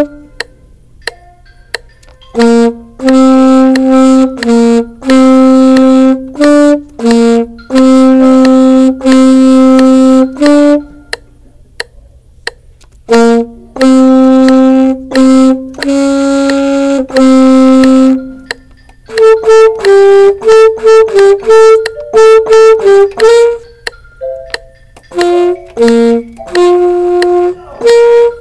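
Solo saxophone playing a slow melody: long held notes in two phrases separated by pauses, then a quicker run of shorter notes from about nineteen seconds in.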